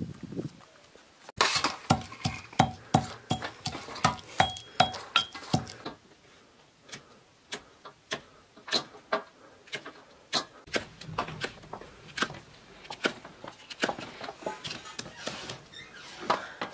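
A knife chopping green peppers on a wooden stump, with a brass pestle knocking in a mortar: a run of sharp strikes about three a second, loudest over the first few seconds and softer later, with a brief metallic ring among them.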